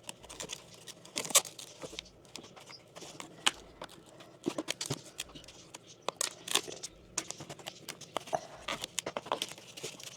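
Scattered, irregular clicks, taps and scrapes of hand work with tools and plumbing parts, with light rustling between them.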